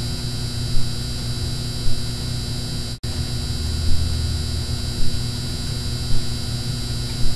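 Steady electronic drone of many held tones over a hiss, with a short hit about once a second and a brief dropout about three seconds in.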